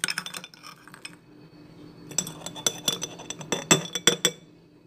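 A spoon clinking against a glass jar as frozen pomegranate seeds are tipped in. There are a few light clicks at the start, then a run of ringing clinks from about two seconds in.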